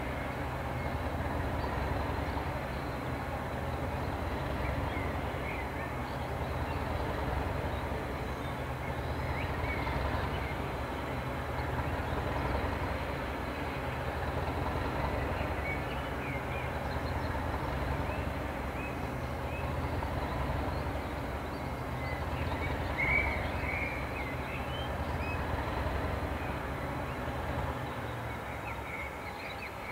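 Diesel engine of a Class 207 diesel-electric multiple unit idling steadily, with birds chirping now and then, a little louder about three-quarters of the way through.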